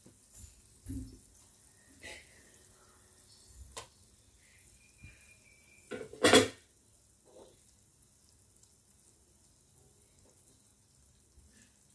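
Kitchen handling sounds: a few soft knocks and clatters as chicken leg pieces are put into a nonstick pot of masala broth and a wooden spatula moves them, with one louder clatter about six seconds in.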